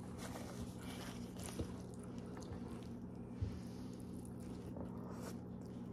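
Faint, wet chewing and squishing of chicken and rice eaten by hand, with a couple of small clicks, over a steady low hum.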